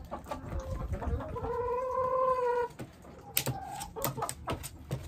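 Chickens clucking in a coop, with one chicken giving a drawn-out call lasting over a second, about a second in. A few sharp knocks follow near the end.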